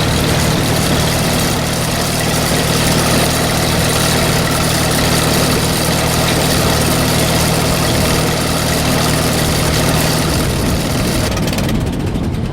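Allis-Chalmers WD45 tractor engine running steadily at idle, dying away near the end.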